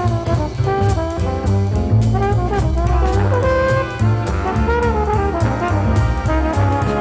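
Jazzy big-band music with brass, led by trombone and trumpet, over a steady drum beat and bass.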